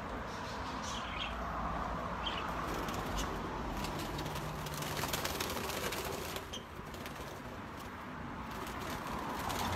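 Caged budgerigars chirping a few times, short high calls over a steady outdoor hiss.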